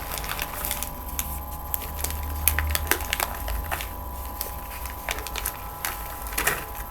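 Microwaved cornstarch chunks cracking and crumbling as they are broken apart: a run of small, sharp cracks and crunches over a steady low hum.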